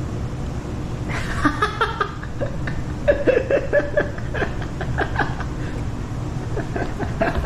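Laughter in short, choppy bursts, starting about a second in, over a steady low hum.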